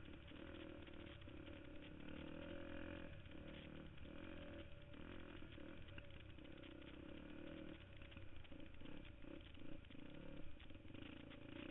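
KTM 250 XC-F four-stroke single-cylinder dirt bike engine running at low revs, the throttle opened and closed in short spells, with the bike rattling over rough singletrack.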